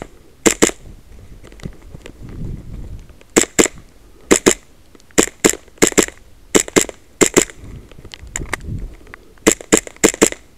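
Custom Hi-Capa 5.1 gas blowback airsoft pistol firing in quick double taps: about ten pairs of sharp shots with short pauses between them as the shooter moves from target to target.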